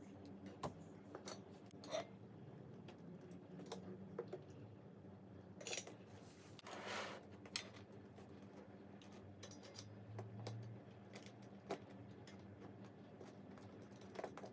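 Faint, scattered metallic clicks and taps of small hardware and aluminium extrusion parts being handled during 3D-printer frame assembly, with a couple of short scraping or sliding sounds about six and seven seconds in, over a steady low hum.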